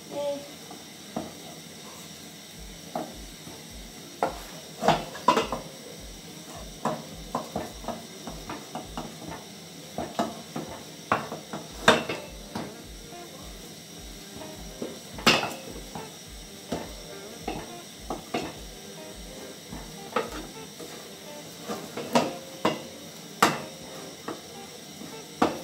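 Wooden cooking stick knocking and scraping against the side of a metal pot as stiff ugali dough is stirred and pressed, in irregular knocks with a few louder ones.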